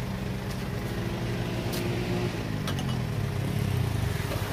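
A motor vehicle's engine running steadily, its pitch sliding down over about two seconds starting halfway through, with a few light clicks.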